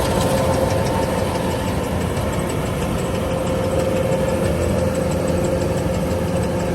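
Engine running steadily at an even pace, with a steady whine over its low rumble.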